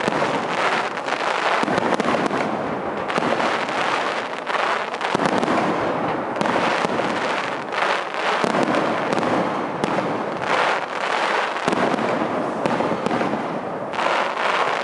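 Aerial fireworks display: shell bursts going off one after another in a dense, unbroken barrage of bangs that overlap into a continuous din.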